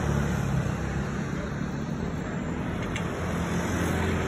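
Steady low outdoor rumble with no clear single source, with a faint click about three seconds in.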